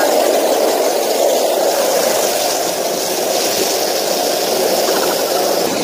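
Steady rush of heavy water pouring down from a spa's waterfall massage shower and splashing close by.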